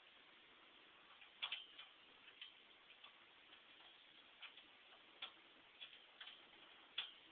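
Faint, irregularly spaced metallic clicks and taps of bolts and washers being handled and fitted on the step brackets, about a dozen in all, with the loudest near the start and near the end.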